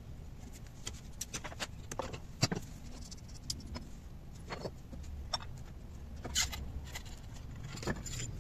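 Irregular metallic clicks and clinks of a socket wrench, nut and clutch parts being handled as the clutch assembly and drive belt come off a Suzuki Access 125 scooter's CVT, the sharpest clink about two and a half seconds in.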